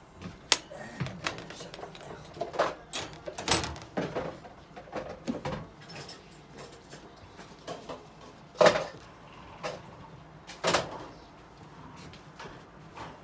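Irregular knocks, clicks and rustling as someone handles things and wipes down a stainless steel examination table with paper tissue. There are a few sharp knocks, the loudest about two-thirds of the way through.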